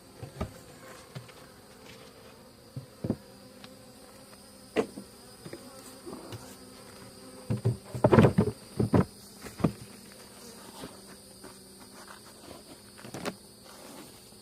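Honeybees buzzing steadily around an open hive, a weak colony that the beekeeper thinks has no queen. Several sharp knocks and clatters cut through, the loudest cluster about eight to nine seconds in.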